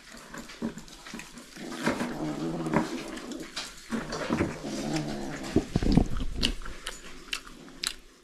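Puppies growling at each other while they eat off the floor. The rough, low pitched growls come and go through the middle, with short taps and scuffs throughout.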